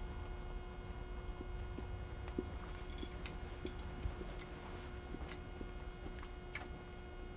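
A person chewing a mouthful of crusty rye bread: soft, regular chewing ticks, about two or three a second, with small crumbly clicks, over a faint steady electrical hum.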